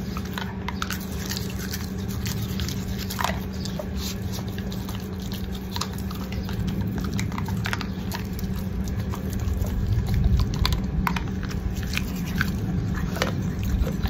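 A Cane Corso's teeth being brushed with a toothbrush: scattered small wet clicks of the brush on the teeth, with the dog chewing and licking at it.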